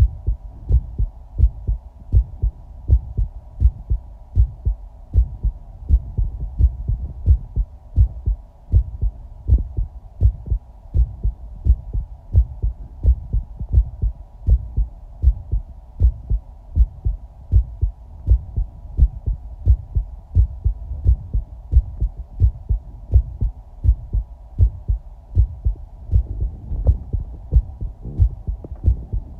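A person's heartbeat: a steady, regular run of low thumps, about one and a half to two a second, with a constant faint hum behind it.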